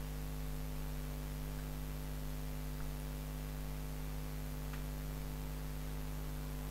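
Steady electrical mains hum over a constant hiss, the recording's noise floor, with one faint click about five seconds in.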